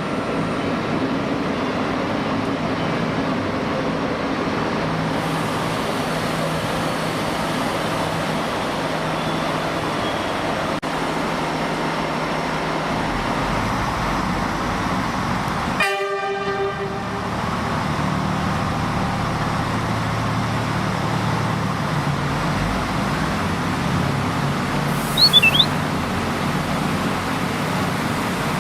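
Railway station ambience with a train running: a steady rumble and hiss. About halfway through there is a short pitched tone, and a few brief high squeaks come near the end.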